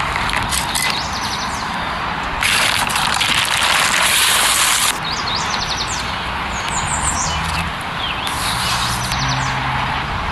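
Birds chirping in short repeated calls over a steady hiss, which grows louder for a few seconds from about two and a half seconds in.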